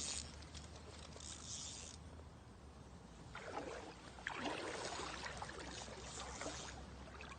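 Water splashing and sloshing irregularly as a hooked pike thrashes at the surface, in short bursts at first and then louder and more continuous from about three seconds in.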